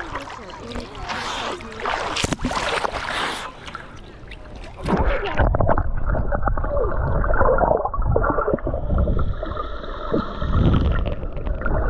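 Water splashing around a swimmer treading water out of his depth. About five seconds in, the sound turns dull, muffled and gurgling, as when the camera dips under the surface.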